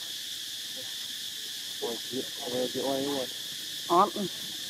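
Steady high chirring of insects. Over it come a few short bursts of a voice, about two, three and four seconds in, the last the loudest.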